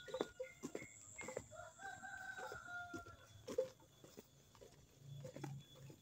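A rooster crowing once, faint: a single drawn-out call lasting about a second and a half and falling slightly in pitch.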